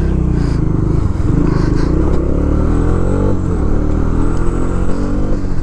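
Bajaj Dominar 400's single-cylinder engine running under way, its note rising and falling as the bike rides off.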